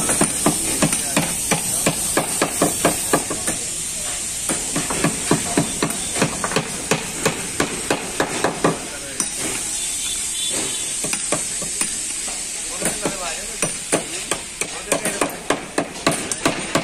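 Hammering on a wooden truck cabin frame: irregular runs of sharp blows, several a second, thinning out briefly twice. A steady high hiss lies underneath.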